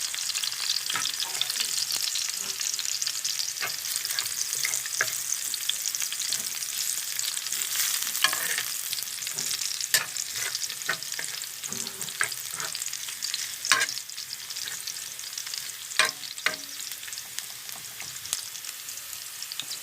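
Sautéing in hot oil in a pan: a steady sizzle while it is stirred, with frequent clicks and scrapes of the utensil against the pan, as the sauté turns brown.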